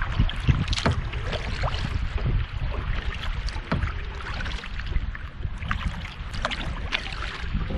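Double-bladed kayak paddle dipping into lake water beside a solo canoe, with irregular splashes and drips off the blades over a steady low rumble.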